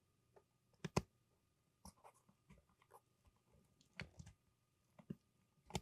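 Scattered small clicks and taps of camera parts and tools being handled during reassembly of a mirrorless camera, about eight sharp ticks spread irregularly, the loudest about a second in and near the end.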